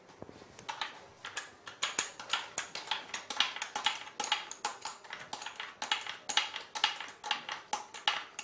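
Metal tool clicking and tapping at a motorcycle's chain adjuster as it is wound in to take up chain slack: quick, irregular clicks, several a second.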